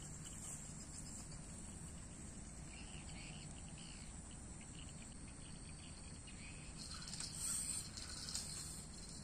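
A steady, high-pitched chorus of insects chirring, with a brief louder sound about seven and a half seconds in.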